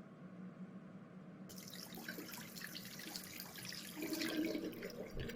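Faint trickle of running liquid, a sound effect for a child peeing, starting about a second and a half in.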